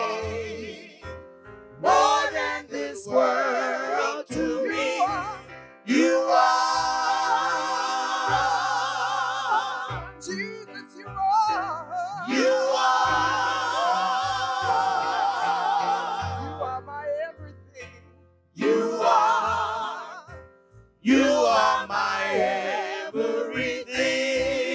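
A small gospel praise team singing a slow worship song into microphones, several voices together, with long held notes sung with vibrato.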